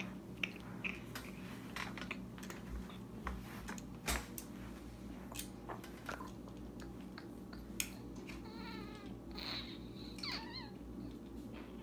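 Plastic Lego pieces clicking and rattling as a small toy car is handled and its wheels pressed on, quiet and scattered over a low steady hum. About eight and a half seconds in, a high, wavering squeaky call, twice.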